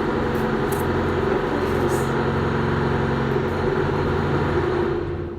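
A motor vehicle's engine running steadily nearby, a low droning hum that fades away near the end.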